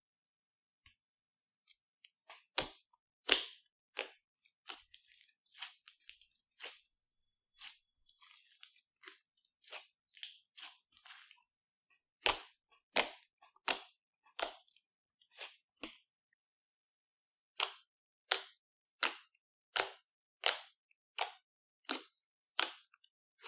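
Slime being mixed and squished by hand, giving a run of short sticky clicks and pops at about one or two a second, with a brief pause past the middle.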